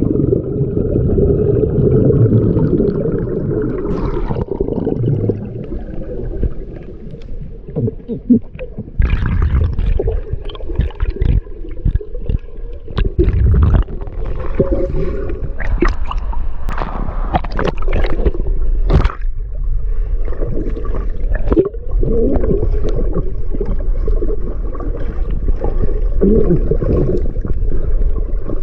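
Muffled underwater sound heard through a submerged camera: a steady low rumble with gurgling bubbles and scattered knocks and clicks as a swimmer dives toward the bottom of a creek cave.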